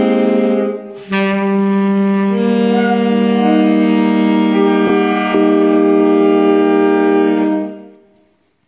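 Saxophones playing held chords in several parts: a short break about a second in, then a long final chord that dies away near the end.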